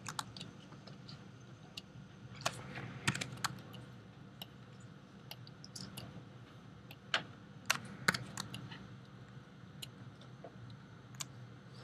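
Irregular clicks of a computer keyboard and mouse, single or a few in quick succession, over a faint low steady hum.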